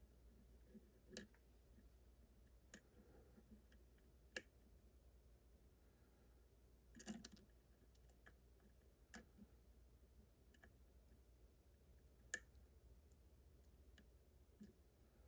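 Faint, scattered clicks and taps of metal lockpicking tools against a lock, irregularly spaced a second or two apart, with a short cluster of clicks about seven seconds in.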